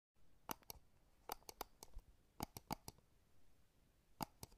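Faint, sharp clicks over near silence, singly and in quick runs of two to four, about a dozen in all.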